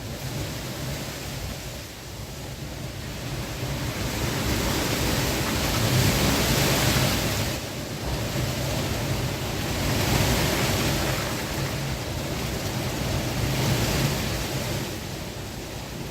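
Heavy wind blowing in strong gusts, a rushing-air noise that swells and eases: three big surges, with a brief lull between the first two, then dying down near the end.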